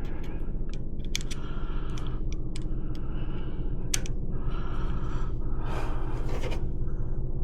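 Hand work on furnace parts: scattered sharp clicks and short scraping or rustling sounds over a steady low hum.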